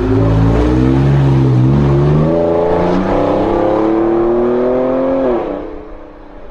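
Light utility vehicle accelerating, its engine pitch climbing steadily; a little over five seconds in, the pitch drops sharply and the sound fades as it drives past.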